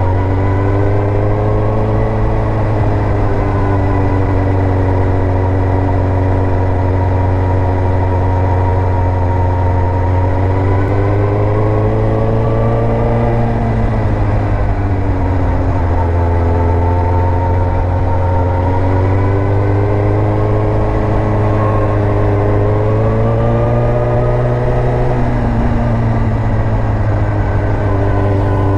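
Suzuki GSX-R1000 K2 inline-four engine running while being ridden, its pitch rising and falling several times, over a steady low rumble.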